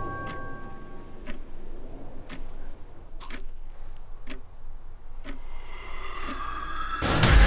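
Mantel clock ticking about once a second. In the last two seconds rising tones swell up, and a loud sudden burst of sound breaks in just before the end.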